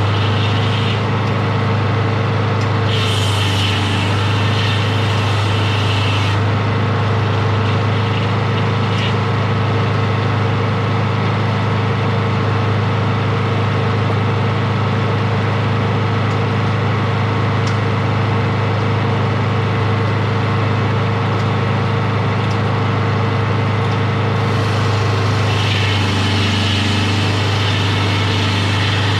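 Engine of a sawmill running steadily at a constant pitch, with a stretch of added hissing about three seconds in and again near the end.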